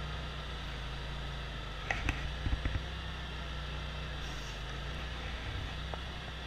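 Forklift running with a steady low hum as it is driven, with a few sharp knocks and rattles about two seconds in.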